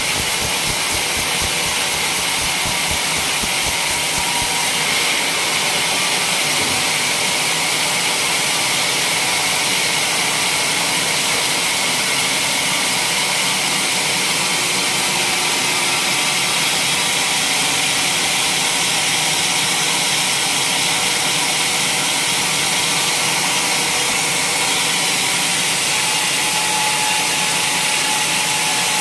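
Sawmill running steadily as it saws waru gunung logs, a continuous loud hissing machine noise. A low rumble drops away about four seconds in.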